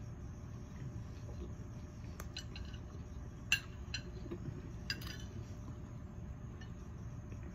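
Cutlery clinking against a plate or food container several times while eating, the sharpest clink about three and a half seconds in, over a steady low hum.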